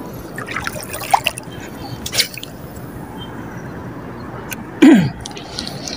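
Shallow seawater lapping and dripping around a wading angler, with small clicks and knocks from handling a spinning reel. Just before five seconds in comes one brief loud falling sound.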